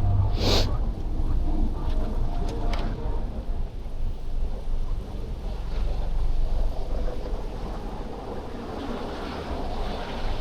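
City street traffic and a bicycle's wind rumbling on the action-camera microphone, with a short sharp hiss about half a second in.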